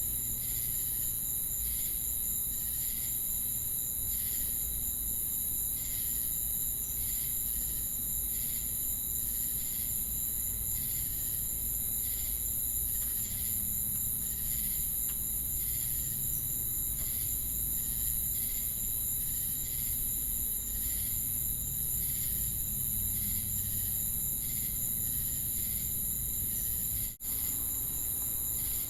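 Crickets and cicadas chirping: a steady high-pitched insect drone with a regular pulsing chirp beneath it, a little more than one pulse a second. The sound cuts out for a moment near the end.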